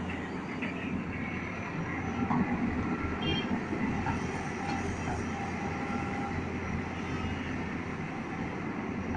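Tata Hitachi EX210 hydraulic excavator running steadily under load, its diesel engine and hydraulics in power mode as it digs earth and swings the bucket over a tipper truck. Slightly louder for a few seconds during the dig and swing.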